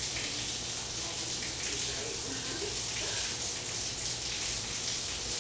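Steady hiss with a low electrical hum underneath: the room tone of a small indoor room.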